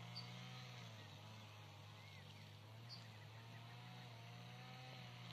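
Near silence: faint outdoor ambience with a low steady hum and three short, high chirps spread through it.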